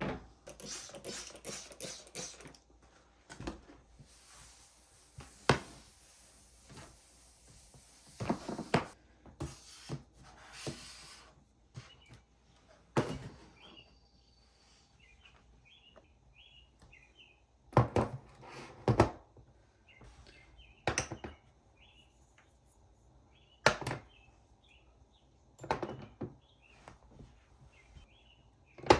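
Scattered knocks, thuds and clatters of household objects being handled in a small room, a few louder ones standing out, with faint chirping in the background from about halfway in.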